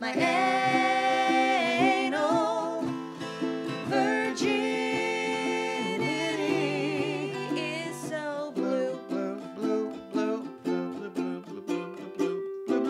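A woman and a man singing long, drawn-out notes together with vibrato over ukulele and acoustic guitar. About eight seconds in the voices stop and the ukulele and guitar keep playing on their own.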